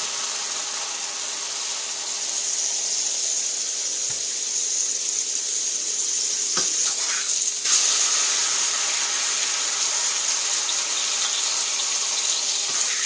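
Butter sizzling in a hot frying pan under bread and a slice of bologna, a steady hiss, with one brief louder crackle about eight seconds in.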